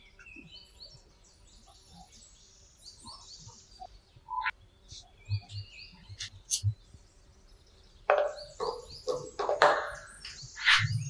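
Screwdriver working on the stator plate of a 1970s Honda 110cc engine: small metal clicks and squeaks as the screws are turned, then louder scraping and clinking from about eight seconds in as the plate is pulled off the engine case.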